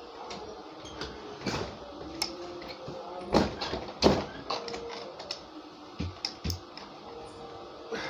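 Irregular metallic clicks, rattles and knocks of a broken door handle and lock being worked by hand to free the latch. Two sharper knocks come a little past the middle, then two dull thumps.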